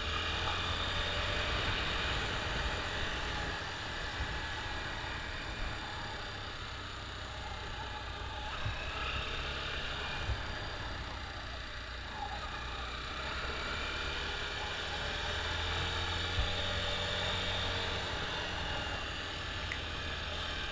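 Honda XR 250 Tornado's single-cylinder four-stroke engine running steadily while the bike is ridden, under an even rush of wind and road noise, its pitch rising and falling slowly.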